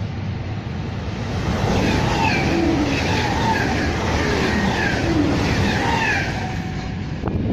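Pendolino high-speed electric train running through the station at speed: a rushing noise swells over the first couple of seconds and holds while the cars pass, with short squealing tones repeating about twice a second, then dies away near the end.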